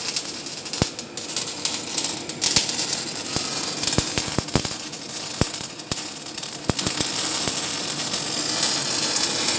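Electric arc welding: a steady frying hiss with irregular sharp crackles and pops.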